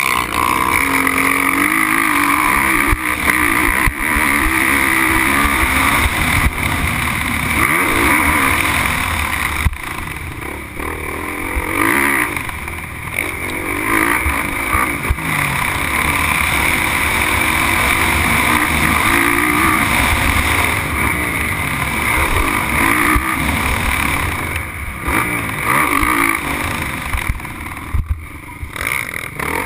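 Motocross bike engine at race pace, revving up and dropping off again and again through the corners and jumps, heard from an on-board camera on the bike.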